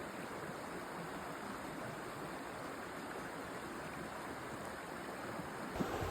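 Steady, even rushing of a mountain stream. Near the end the sound changes abruptly to irregular low gusts.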